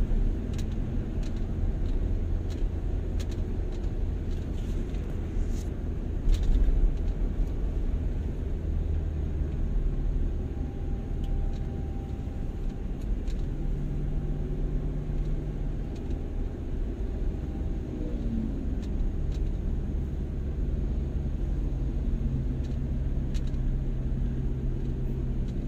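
A road vehicle driving along a busy road: a steady low rumble of engine and tyres, with an engine hum that shifts up and down in pitch from time to time.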